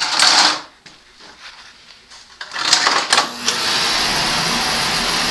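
Beckett oil burner on a Burnham boiler firing up after its service. A scuffing noise at the start, a few irregular bursts about two and a half seconds in, then about three and a half seconds in the burner settles into a steady rushing sound, the sign that it has lit and is running.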